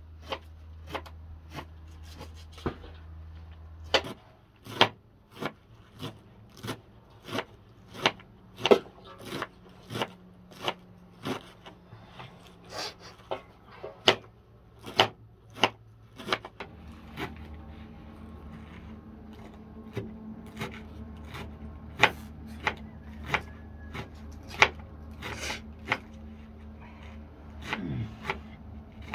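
Kitchen knife chopping fresh leafy greens on a board, in steady single chops about one and a half a second.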